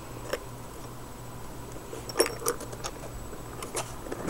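Zippered hard-shell headphone case being handled in the hand: scattered sharp clicks and light rattles, the loudest about two seconds in, over a steady low hum.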